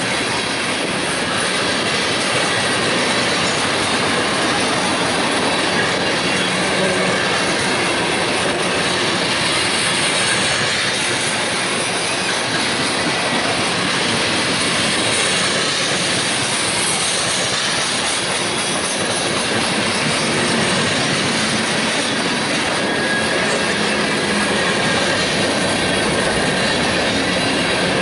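Mixed freight train of boxcars, tank cars and covered hoppers rolling past close by: the steady noise of steel wheels running on the rails.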